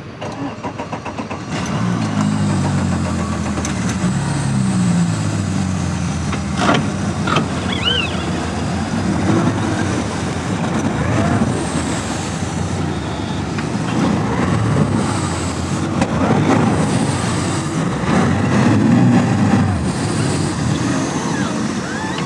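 A boat's outboard motors running, picking up in pitch and level about a second and a half in, then holding steady.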